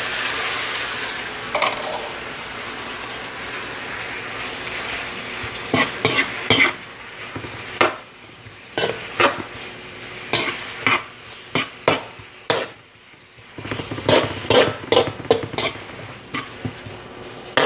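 Onions, ginger, garlic and fresh tomatoes sizzling in hot oil in a metal wok. From about six seconds in, a metal spatula scrapes and clanks against the wok in quick irregular clatters as the vegetables are stirred.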